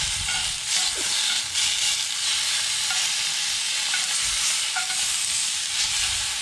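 Venison backstrap sizzling steadily as it sears in a smoking-hot cast iron skillet over charcoal, with a few light clinks of metal tongs as the pieces are turned.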